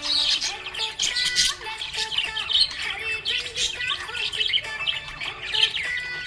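Budgerigars chirping and squawking continuously in quick, overlapping calls.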